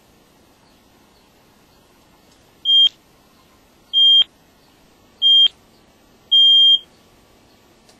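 Smoke alarm beeping: four short, loud, high beeps a little over a second apart, the last one held longer.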